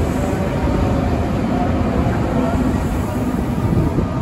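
Tokyu 8500-series electric commuter train pulling out of the station, its rear cars rolling close past with a steady rumble of wheels on rails.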